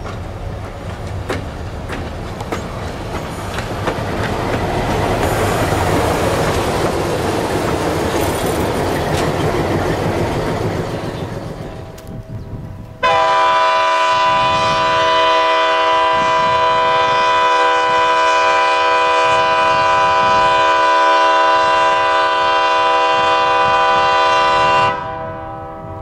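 An ALCO diesel locomotive runs past on the rails, growing louder over the first several seconds and then fading. About halfway through, a multi-chime locomotive air horn sounds one long, steady chord of several notes for about twelve seconds, then cuts off suddenly, blown for its FRA loudness test.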